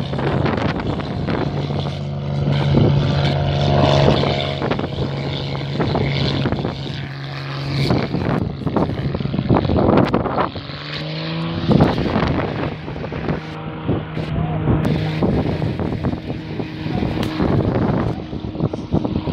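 Single-engine propeller aircraft's piston engine running with a steady drone, its pitch rising briefly about ten seconds in before settling again. Scattered knocks and rustle on the microphone run through it.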